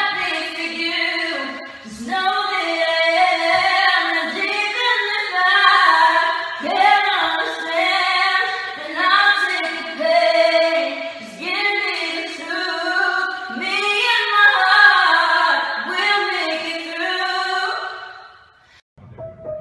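A woman singing unaccompanied, her voice sliding between long held notes, stopping shortly before the end.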